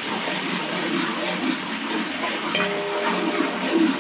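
Ground onions sizzling in hot oil in a large steel pot, with a metal ladle stirring and scraping against the pot in a few clinks.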